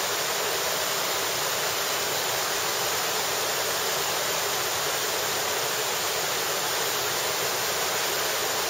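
Steady, even rush of falling water from a mountain waterfall and its stream.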